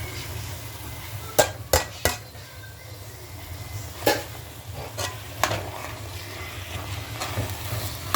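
A cooking spoon knocking sharply against a pot about six times, three in quick succession and then a few more, as callaloo is stirred in with okra, over a steady low hum and faint sizzle from the pot.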